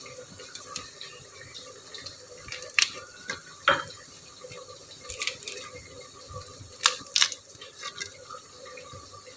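Scattered light taps and clicks as green chillies are dropped into a clear mixer jar and handled, over a faint steady hiss.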